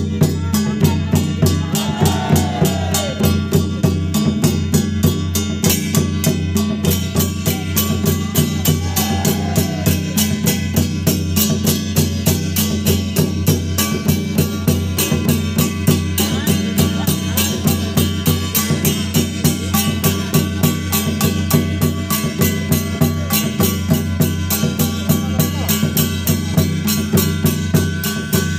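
Music led by drums playing a fast, even beat over sustained low tones.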